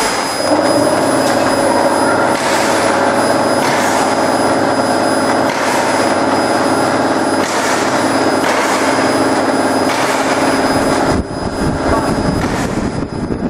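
CO2 laser marking machine running as it engraves a wood sheet: a loud, steady machine hum with a whine. It sets in about half a second in and drops away about eleven seconds in.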